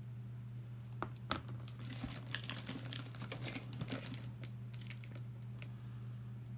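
Plastic crinkling and rustling with a few sharp clicks, as small plastic toys are handled and sorted.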